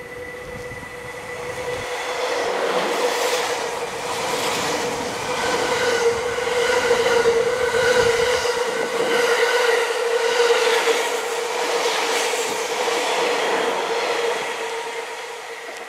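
E001 series 'Train Suite Shiki-shima' passing close at speed without stopping: a rushing sound that swells as the cars go by, with repeated clatter of the wheels over the rail joints and a steady tone held underneath.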